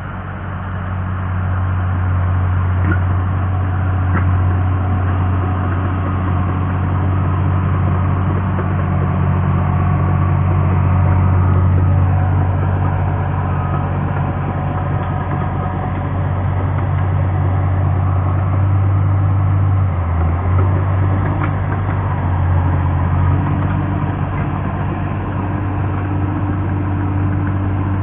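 Caterpillar bulldozer's diesel engine running steadily with a deep, even hum. It dips briefly about two-thirds of the way through.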